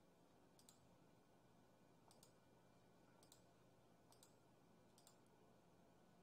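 Faint computer mouse clicks, about five, each a quick press-and-release double tick, over near-silent room tone.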